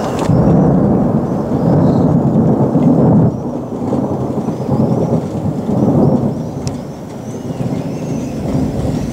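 Rolling thunder from a thunderstorm: a loud, deep rumble through the first three seconds that eases off, then swells again briefly about six seconds in.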